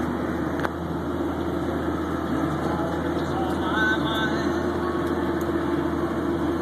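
Snowcat's diesel engine running steadily under load while grooming, heard from inside the cab as an even drone. A single sharp click under a second in.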